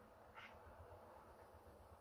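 Near silence: faint room tone with a low hum, and one brief faint squeak about half a second in.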